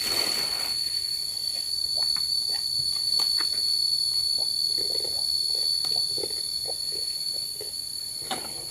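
Insects singing as one steady high-pitched tone, with scattered short, faint knocks and rustles over it and a brief rush of noise at the start.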